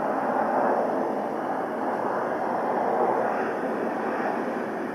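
Steady jet noise from an Embraer 175 airliner's turbofan engines as it climbs out after takeoff, easing slightly toward the end.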